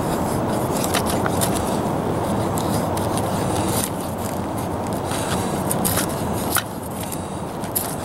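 A hand-made 1095 high-carbon steel trade knife shaving curls off a split stick to make a feather stick: a run of quick, irregular scraping strokes with small sharp clicks. A steady low rushing noise runs underneath.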